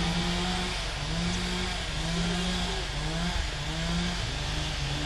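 A chainsaw running, its engine note rising and dipping about once a second.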